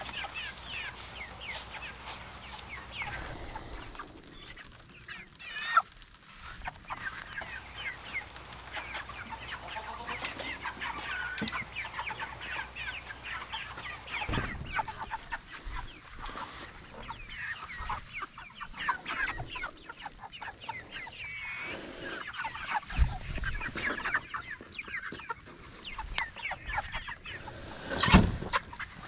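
A flock of Cornish cross meat chickens clucking and peeping without pause. A few sharp knocks come from the wooden chicken tractor's lid and frame being handled; the loudest is near the end, as the tractor is pulled.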